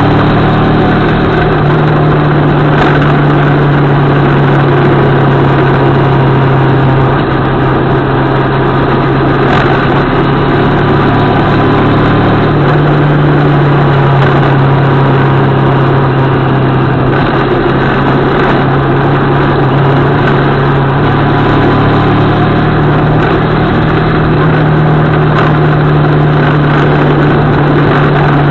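CFMOTO 650MT's parallel-twin engine running steadily as the motorcycle rides along, its pitch stepping up and down several times as the throttle changes through the bends. A steady rush of wind noise from the bike-mounted camera runs under it.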